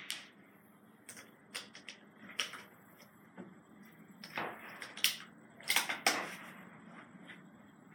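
Irregular clicks and clacks of handling .22 LR cartridges and the rifle while reloading, about ten in all, with the loudest cluster about five to six seconds in.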